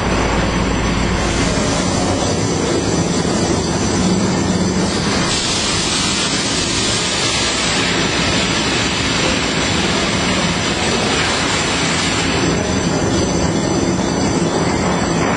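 Toilet roll and kitchen towel rewinding line running at production speed, its jumbo tissue parent roll unwinding into the rewinder. A steady, loud mechanical din with a thin high whine over it.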